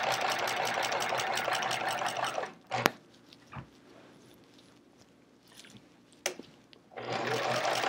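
Domestic sewing machine stitching fast in free-motion quilting. It stops about two and a half seconds in, a couple of sharp clicks sound during the pause, and it starts stitching again near the end.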